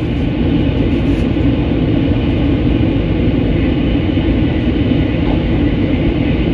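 Cabin noise of a Taiwan High Speed Rail 700T train running at speed: a steady rumble and rush of wheels and air, heard from inside the passenger car.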